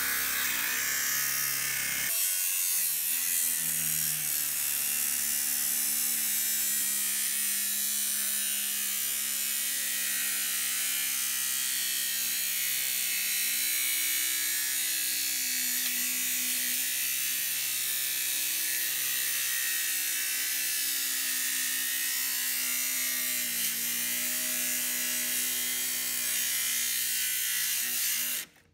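Cordless Milwaukee angle grinder with a cut-off disc running under load, cutting through the steel of a gas water heater: a steady, high-pitched grinding that stops suddenly near the end.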